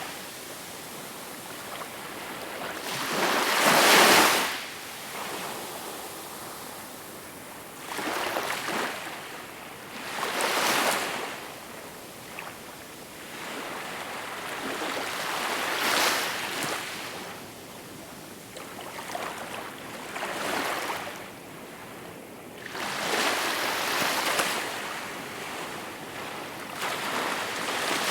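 Small waves washing onto a shore, each one swelling into a rush of water and falling back, one every few seconds.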